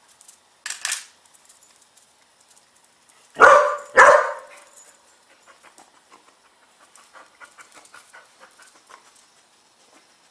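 A dog barks twice in quick succession, loud and sharp, about three and a half seconds in. In scent work this is her alert that she is on the odour. Two short breathy sounds come about a second in, and faint quick soft sounds follow the barks.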